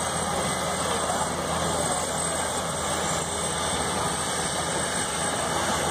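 Steady engine drone with a constant hiss.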